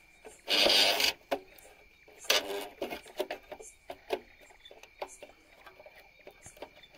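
Plastic scraping and clicking as hands work the contactor block of a water-pump motor starter: two short, loud rasps about half a second and two and a half seconds in, with light clicks between them.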